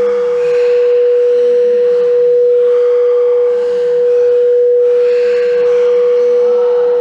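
Singing bowl sounding one loud, steady ringing tone that holds without fading, with fainter wavering tones beneath it.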